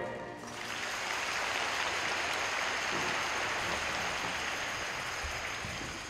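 The last notes of the program music die away, then audience applause starts about half a second in and runs steadily, easing off slightly near the end.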